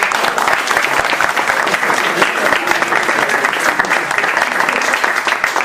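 Audience applauding: many hands clapping, a dense steady round of applause that begins fading near the end.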